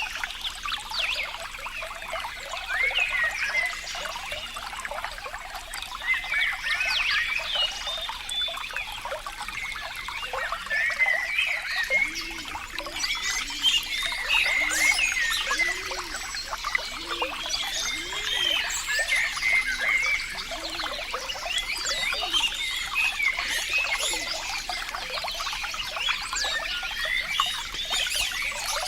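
Running water trickling and gurgling, a steady stream of many small bubbling notes, with a few deeper gurgles about halfway through.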